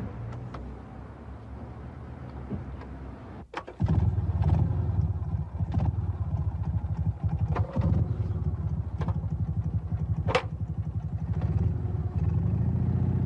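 BMW R24's single-cylinder engine starting about four seconds in, then running steadily with a fast, even beat, a few sharp clicks over it.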